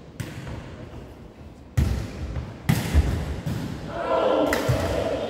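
Jokgu ball struck by kicks and bouncing on the wooden gym floor: several hard thuds, the loudest about two seconds in, echoing in the hall. Players' voices call out near the end.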